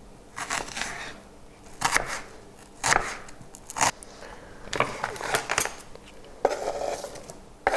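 Knife working diced onion on a wooden cutting board: a few irregular strokes about a second apart, then longer scrapes as the onion is pushed off the board into a bowl.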